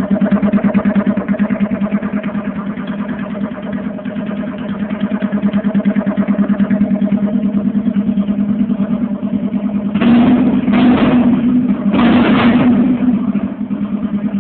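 Yamaha XTZ 125's single-cylinder four-stroke engine idling through a Roncar SS1 aftermarket exhaust, freshly repacked with fiberglass wool and run without its internal baffle. About ten seconds in it is revved in three short blips, then drops back to idle.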